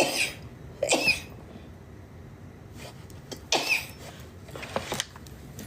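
A woman sneezing repeatedly in a sneezing fit: short, sharp sneezes at the start and about a second later, then two more a few seconds on, the last one weaker.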